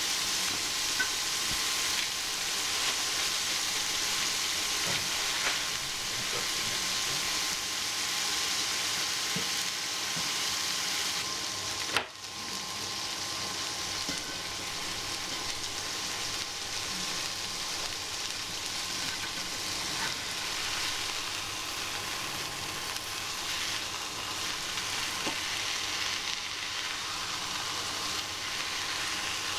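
Seasoned slab of minced beef sizzling steadily in a hot frying pan, a continuous fat-spitting hiss. A single sharp click about twelve seconds in, followed by a brief drop in the sizzle.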